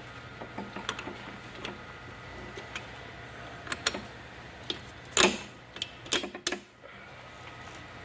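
Scattered metal clicks and clanks as a stud-clamp tool is fitted over a snowmobile track stud, with a few louder knocks past the middle.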